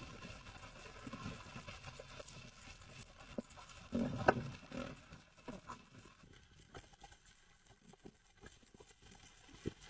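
Underwater sound through a camera housing: scattered clicks and knocks, with a louder thud and clatter about four seconds in and a sharp knock near the end.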